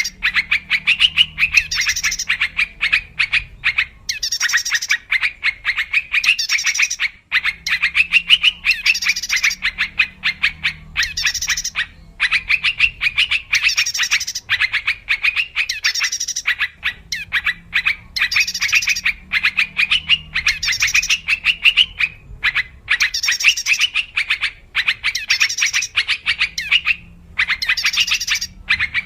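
Yellow-vented bulbul (trucukan) calling: bursts of fast, bubbling chattering notes repeated about every two seconds with short gaps, a lure call played to attract wild birds of the same species.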